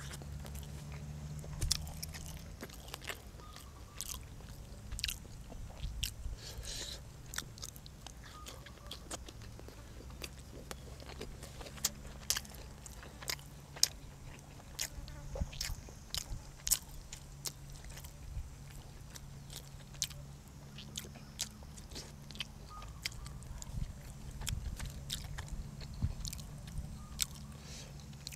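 Close-miked chewing and biting of crunchy food, with many irregular sharp crunches, some much louder than the rest, over a steady low hum.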